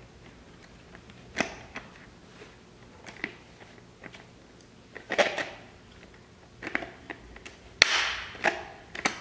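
Pliers and hands working a fitting into a plastic headlight bucket: scattered sharp clicks and crunching snaps with short scrapes between them, the loudest about five seconds in and again near eight seconds.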